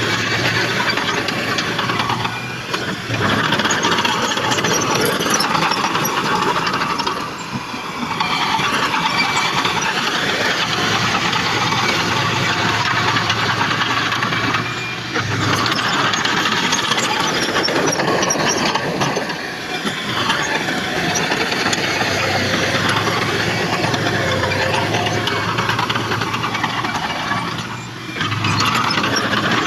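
Heavy earthmoving machinery working, its diesel engine running steadily, with the sound easing briefly every few seconds.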